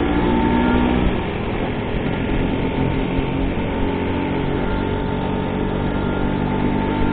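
Two-stroke engine of an old Vespa scooter running steadily at cruising speed on the road, mixed with a rush of wind and road noise.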